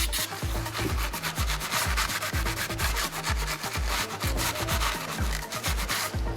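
Gritty abrasive rubbing on the Honda CBR600RR's aluminium cylinder head, a fast, scratchy back-and-forth scrubbing. Under it runs background electronic music with a steady bass beat.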